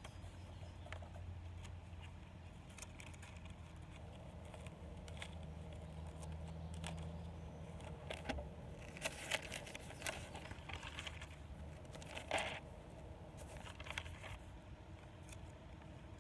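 Paper pages of a Bible rustling and being turned in scattered short bursts, busiest from about nine to thirteen seconds in, over a low steady rumble.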